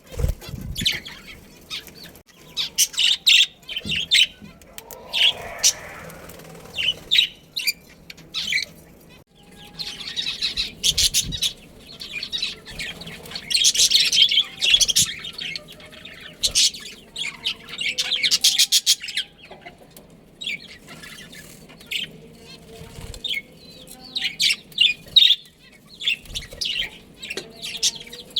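Budgerigars chirping and chattering in quick runs of high chirps, broken by short pauses.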